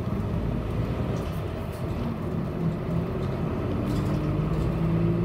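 Nishitetsu city bus heard from inside the cabin while driving: a steady engine and road rumble, the engine note rising a little and growing louder near the end.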